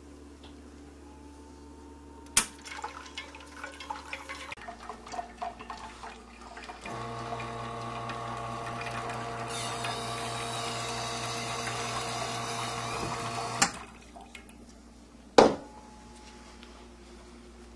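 S1 Vivaldi II espresso machine's pump running steadily with water rushing through the group head for about seven seconds, then cutting off with a click. Before it come light clicks and taps of the portafilter being handled, and one sharp knock follows.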